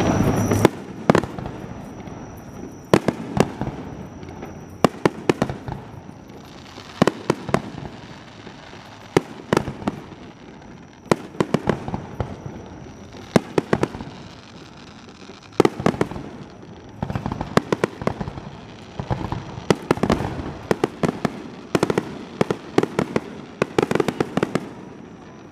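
Fireworks display: bangs going off at irregular intervals, some single and echoing, others in quick clusters of crackling reports.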